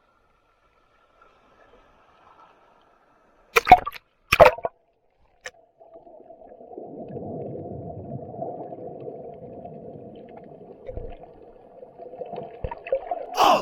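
Sound picked up by an action camera lowered into the sea: two sharp knocks a little under a second apart, then a steady muffled water noise, dull and low-pitched, as heard through the camera's housing underwater.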